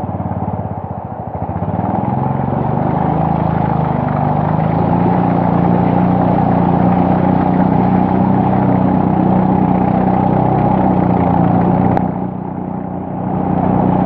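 A wooden river longboat's small engine running under way, its pitch rising over the first couple of seconds and then holding steady. It drops briefly near the end before picking up again.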